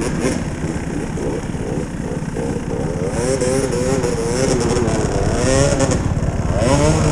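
KTM motorcycle engine revving up and down over and over, busier and a little louder from about three seconds in. The kind of repeated revving heard from a bike that sounds stuck.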